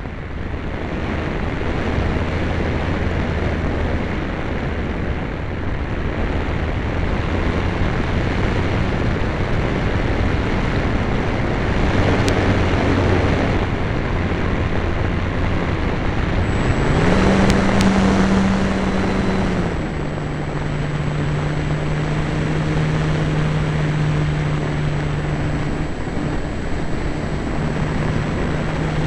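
Radio-controlled model Cessna's motor and propeller droning under a heavy rush of wind, heard from a camera mounted on the plane itself. About two-thirds of the way through, the drone's pitch climbs sharply as the throttle is opened, holds for a few seconds, then drops back.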